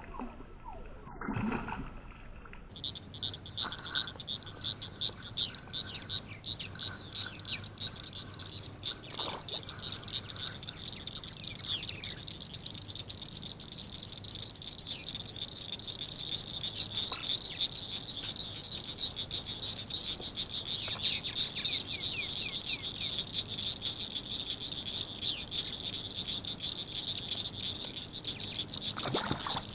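Frogs chorusing in a steady high trill. There is a splash at the very start.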